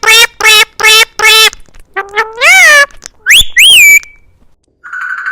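A parrot calling loudly: a quick run of four harsh, evenly spaced squawks, then a few longer calls that swoop up and down in pitch, and about three seconds in two high whistles that rise and then fall.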